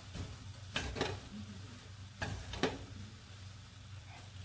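Fried rice noodles being stirred and tossed with wooden chopsticks in a stainless steel pot, with a few sharp clacks against the pot, about a second in and twice a little after two seconds, over a low steady hum.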